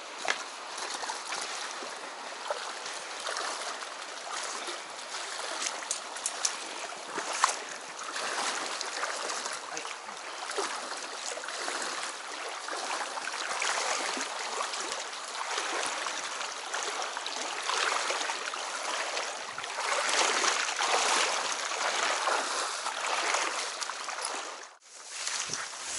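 Footsteps and rustling of dry marsh grass and reeds as someone walks through them, a continuous swelling rustle with scattered small snaps. The sound breaks off abruptly for a moment near the end.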